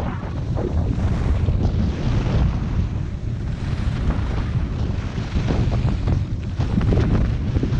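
Wind buffeting a moving action camera's microphone during a fast ski run: a loud, steady low rumble, with the uneven hiss and scrape of skis carving on groomed snow.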